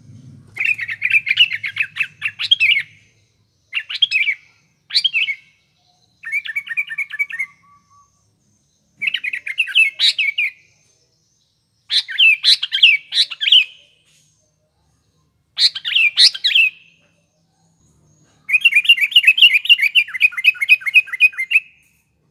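Sooty-headed bulbul (kutilang) singing lively in repeated bouts of quick chattering, whistled notes, each bout one to three seconds long with short pauses between, the longest coming near the end.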